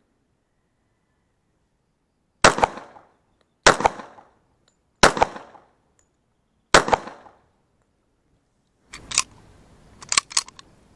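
Four semi-automatic pistol shots, spaced a little over a second apart, each with a short echo. Near the end come a few sharp metallic clicks as the pistol's slide is worked.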